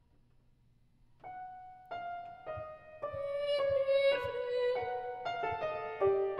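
Yamaha grand piano played solo: after a near-silent pause it comes in about a second in with single notes, which build into a louder, denser passage of overlapping notes.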